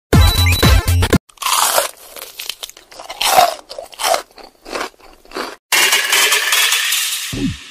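Small dogs chewing and crunching bread, a run of crisp, crackly bites. A short burst of electronic music plays at the start.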